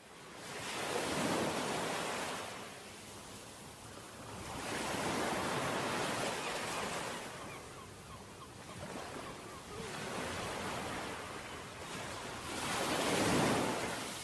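Ocean waves breaking on a beach, the surf swelling and receding in slow surges every few seconds, fading in at the start.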